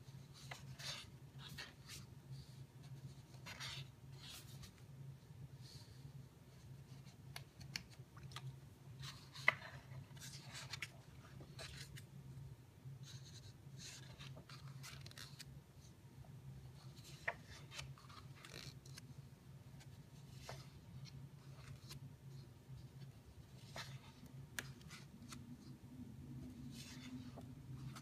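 Pages of a large hardcover photo book being turned and smoothed by hand: faint, irregular paper swishes and rustles over a steady low hum.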